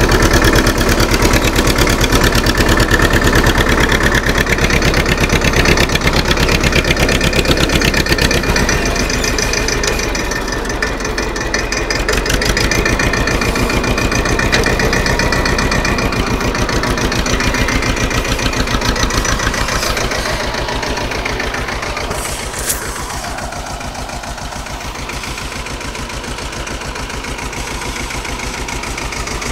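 TAFE 25 DI tractor's diesel engine running with a steady, fast thudding beat, easing a little quieter about twenty seconds in. A single sharp click is heard shortly after.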